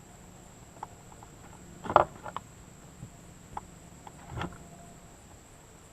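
A few scattered knocks and clunks, the loudest about two seconds in, from stacked 2x4 boards being handled and pulled apart.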